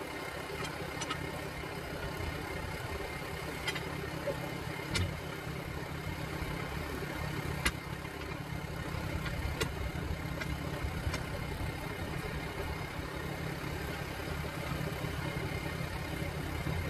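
An engine idling steadily through the whole stretch, with a few sharp, isolated metallic clicks as tire irons are levered against the steel rim of a large backhoe tire.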